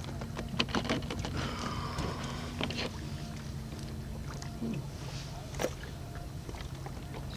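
Sounds on a fishing boat on the water: a steady low hum with scattered clicks and knocks of gear handled on the deck, and a brief whirr about two seconds in.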